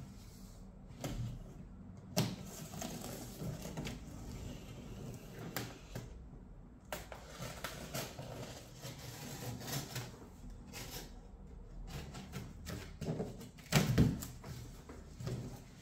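Packing tape being slit and scraped along the seams of a large cardboard box, a run of small clicks and scrapes. About 14 s in, a loud cardboard rustle as the box's top flap is lifted open.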